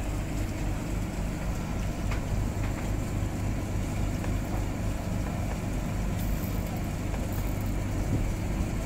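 A fishing boat's engine running with a steady low hum.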